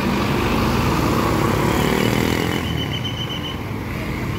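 Large bus engine running amid road and traffic noise, steady and loud. A faint thin high tone joins about two and a half seconds in.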